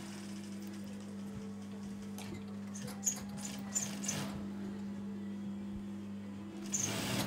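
Workshop room tone: a steady low electrical hum, with faint rustling and a few light clicks as fabric pieces are handled on a worktable, and a louder rustle of noise near the end.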